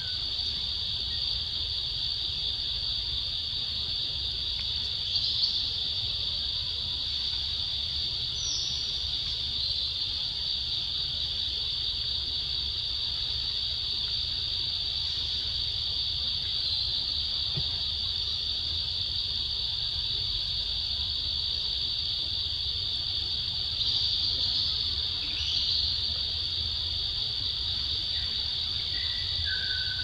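Forest insects droning in a continuous high-pitched chorus, with a few brief bird chirps here and there and a low rumble underneath.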